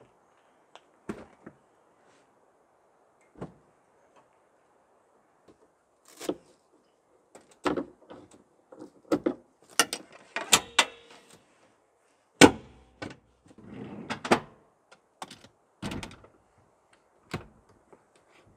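Rear seats of a Mitsubishi Delica van being folded and latched by hand: a string of clicks, clunks and thuds from the seat latches and hinges, the loudest a sharp knock about twelve seconds in, with a brief rustle of upholstery just after.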